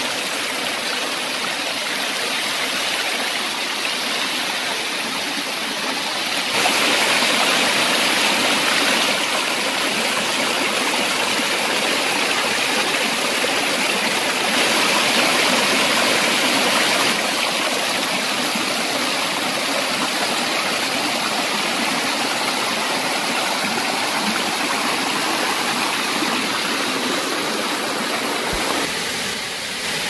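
Shallow rocky stream rushing over rock slabs and small cascades, a steady dense wash of water noise. It gets louder about six seconds in.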